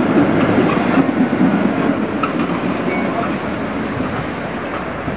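Tram rolling past on its rails, a steady rumble that fades over the second half as it pulls away.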